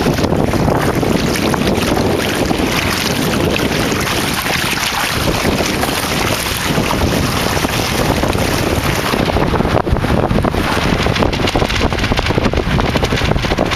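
Wind buffeting the microphone over the rush and splash of water along the hull of a small sailboat under way.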